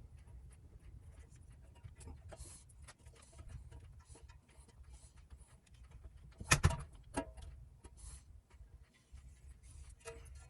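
Faint scattered clicks and rustles of electrical wires being handled and joined with a wire nut for the light fixture's hot connection. A sharper knock comes about six and a half seconds in, and a smaller one shortly after.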